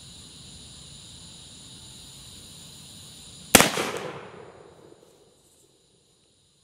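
A single shot from a Pietta 1858 Remington .44 black powder revolver about halfway in, its echo dying away over a second and a half. Crickets chirp steadily before it.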